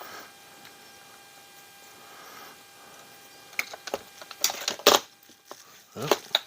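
Clicks and clatter of small hard parts and hand tools being handled during disassembly of an RC rock crawler, starting about three and a half seconds in, with a few loud knocks around the middle and near the end. Before that, only a faint steady hum.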